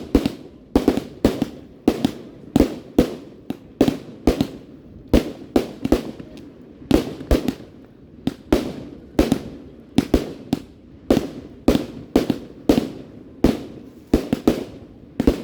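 Fireworks bursting overhead in quick succession, about two to three loud bangs a second, each trailing off in a rolling echo.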